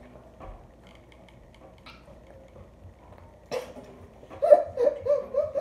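Mostly quiet room with faint scattered clicks and one sharp click about three and a half seconds in, then a girl making short wordless vocal sounds near the end.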